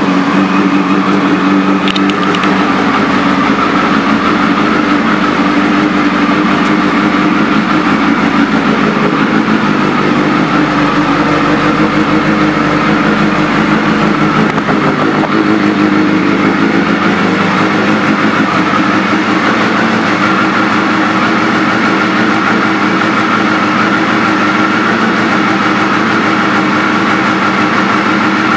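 2000 Suzuki GSX1300R Hayabusa's inline-four engine idling steadily through an aftermarket exhaust.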